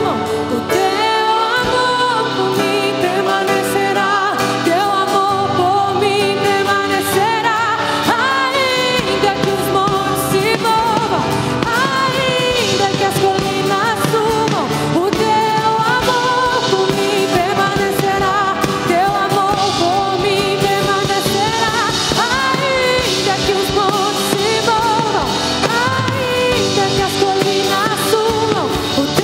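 Live worship band playing a Portuguese-language praise song, with women's voices leading the singing over drums, bass, electric and acoustic guitars and keyboard. The bass and drums come in fuller about nine seconds in.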